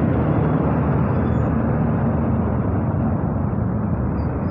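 Motorcycle engine running steadily at low speed in traffic, mixed with road and wind noise, picked up through an earphone microphone.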